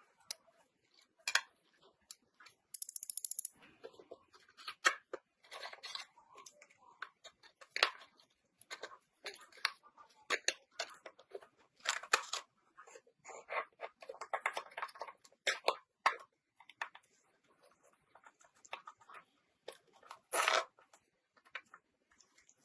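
Irregular short scrapes, clicks and taps of hand work on an old rusty gun's parts, with a brief hissing rasp about three seconds in.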